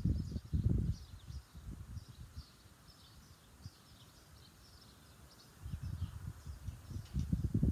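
Wind gusting on the microphone, a low rumble in the first second that dies away and builds again from about two-thirds of the way through, with small birds chirping faintly and repeatedly throughout.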